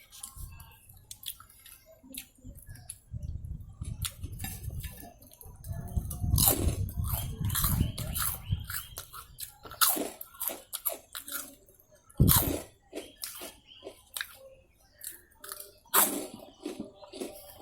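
Close-up eating sounds: biting and chewing crisp fried chicken and chips, with loud crunches and wet mouth noises. The densest crunching falls in the middle, with a few sharp louder crunches later on.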